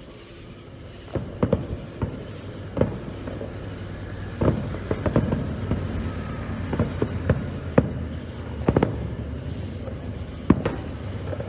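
Fireworks going off: about a dozen sharp bangs at irregular spacing, some in quick pairs, starting about a second in.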